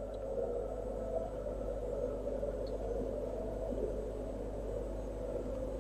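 Steady background hum and hiss of room tone, with no distinct events.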